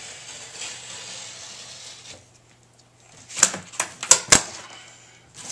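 Paper being pulled and torn off a cardboard gift box: a soft rustle at first, then a quick run of sharp crackles about three and a half seconds in.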